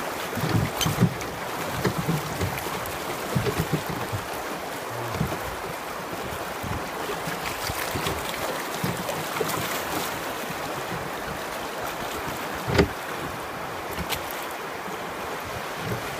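Wind buffeting the microphone over rushing water from a moving boat, with scattered low thumps in the first few seconds and a single sharp knock about 13 seconds in.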